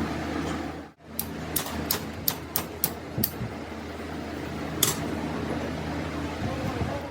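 Workshop noise: a steady low machine hum with a run of sharp taps or knocks, about eight of them between one and five seconds in. The sound drops out briefly about a second in.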